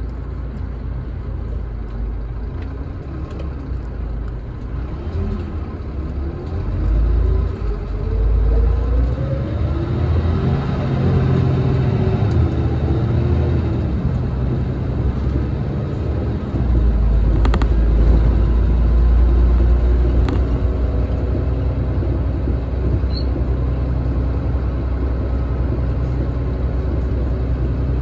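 Tokyu Bus coach's engine heard from inside the cabin while under way. The engine note rises in pitch several times as the bus picks up speed, then settles into a steady low drone. Two short sharp knocks come about two-thirds of the way through.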